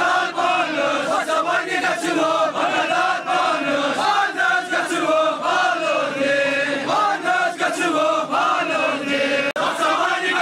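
Crowd of men chanting together in a Sufi devotional chant, the many voices rising and falling in pitch without a break.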